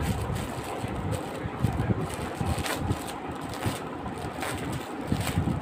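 Uneven low rumbling buffeting on a phone microphone, like wind noise, with a few faint crackles of plastic packaging being handled.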